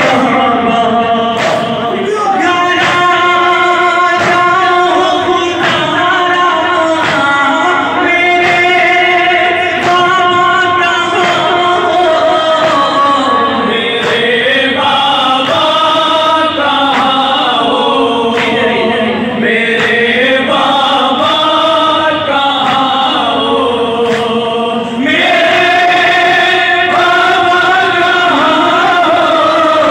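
Men reciting a noha, a Shia lament: a lead male voice sings the verses into a microphone, unaccompanied, with a group of men singing along. Beneath the singing runs a regular beat of hands striking chests (matam).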